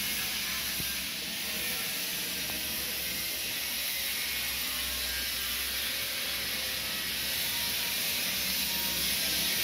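A steady high hiss, with a low rumble that comes and goes beneath it.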